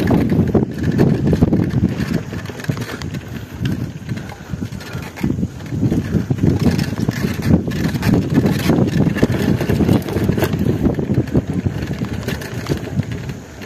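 Mountain bike rolling over a rough, rocky dirt track: tyre noise with frequent small knocks and rattles from the bike, and wind buffeting the microphone.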